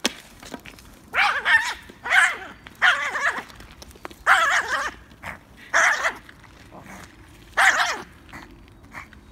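Yorkshire terrier making six strange, high-pitched bark-like noises, each about half a second long and dropping in pitch at its end, while it grips and worries a long stick in its mouth.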